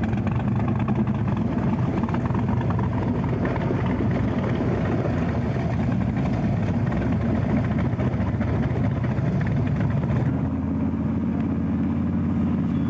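Formula Offroad racing car's engine running steadily. About ten seconds in the sound turns to a steadier, deeper drone with less hiss.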